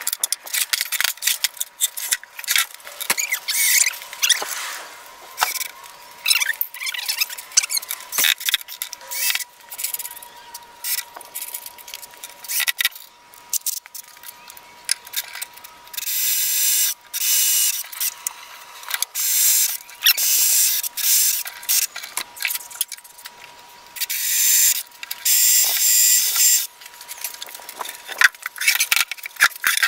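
Workshop handling sounds from a plywood bin cabinet and its hardware: a run of knocks, clicks and metallic rattles as the cabinet and tools are moved about. Several longer rasping, hissing bursts of a second or two come in the second half, over a faint steady whine.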